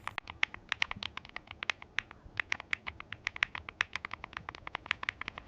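Fast typing on a low-profile mechanical keyboard with Kailh switches, about ten sharp key clicks a second.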